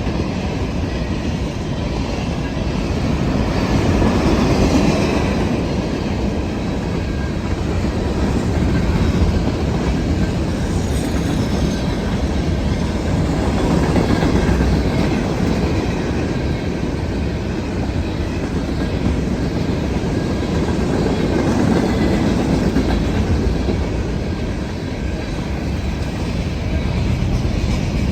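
Freight train of covered grain hopper cars rolling past at speed: a steady, loud rumble with wheels clacking over the rail joints and a faint squeal from the wheels, swelling and easing every several seconds.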